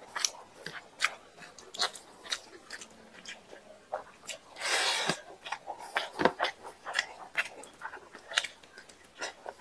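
Close-up eating of curry-soaked rice by hand: wet chewing and lip smacks, many short sharp clicks, with one longer noisy sound about five seconds in.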